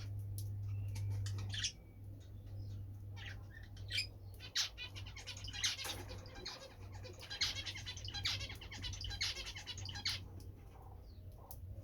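European goldfinches twittering, with quick runs of short high chirps that are busiest in the middle. Underneath is a steady low hum that drops in level about two seconds in.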